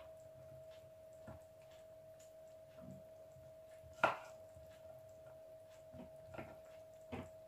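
Kitchen knife slicing a courgette on a wooden chopping board: a few separate knocks of the blade on the board, the sharpest about four seconds in, over a faint steady hum.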